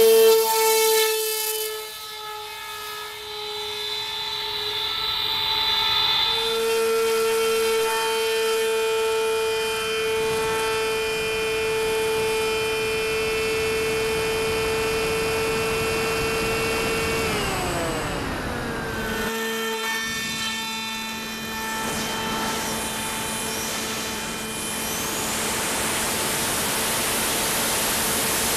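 Electric motor and 10x6 APC propeller of a Ritewing Z3 flying wing running under power, a steady high whine. About 17 seconds in, the pitch glides down as the throttle is eased back and holds lower, with wind rush building near the end.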